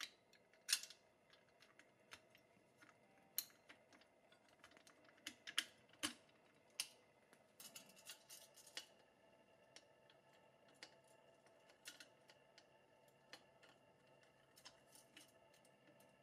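Scattered light metal clicks and clinks from small pressed-steel toy truck winch parts, a steel chain and needle-nose pliers being handled and fitted, a few sharper taps near the start and about six seconds in.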